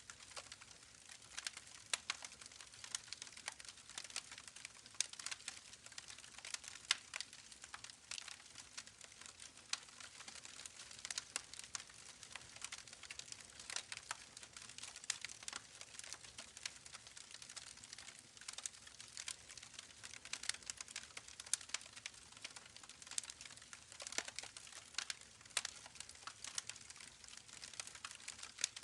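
Campfire crackling: irregular sharp pops and snaps, close together, over a steady soft hiss.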